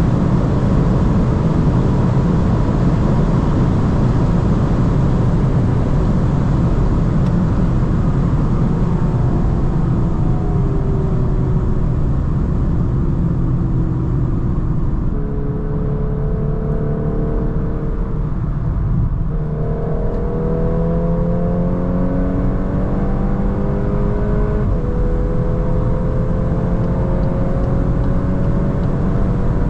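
Volkswagen Golf 8 R Performance's turbocharged 2.0-litre four-cylinder at autobahn speed under a dense rush of wind and tyre noise. About halfway the rush eases as the car slows, then the engine note climbs again under acceleration, with a gear change a few seconds before the end.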